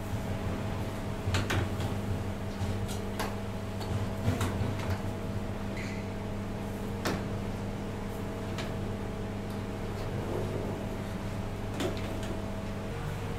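Irregular sharp clacks and knocks of food-stall work, about ten of them, over a steady mechanical hum whose tone shifts near the end.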